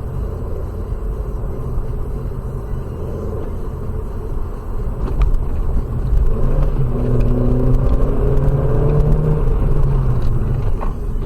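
Car engine and road rumble while driving, the engine note rising steadily from about six seconds in as the car speeds up.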